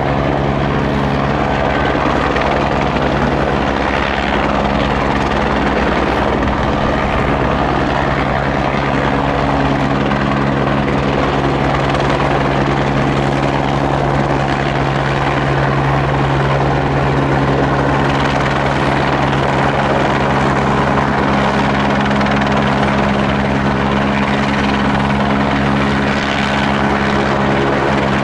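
Light single-engine helicopter hovering and manoeuvring low overhead with a load slung on a long line beneath it. The rotor and engine run at a steady, loud level, with a fast rotor beat under a steady engine hum.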